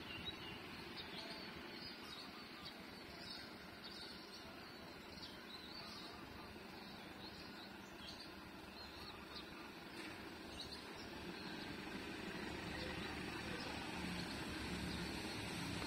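Small birds chirping in short, repeated calls over a faint low rumble. The rumble grows steadily louder over the last few seconds: a diesel locomotive approaching.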